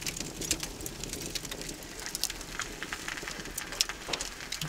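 Wood fire crackling and popping in a brick wood-fired oven: a stream of irregular sharp snaps over a soft hiss of burning logs.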